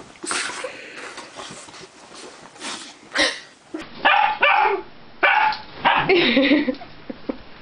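A young husky barking and yelping at a sleeping owner to wake them, in a run of loud, short calls through the second half. Before that there are a few seconds of quieter rustling.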